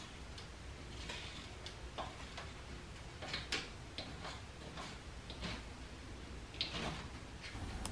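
A short craft knife trimming excess screen mesh along the door frame: faint, irregular ticks and light scrapes as the blade cuts through the mesh strands.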